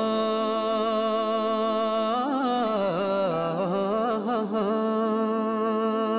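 Background music: a singing voice holding long notes, with wavering melodic turns in the middle, over a steady sustained tone.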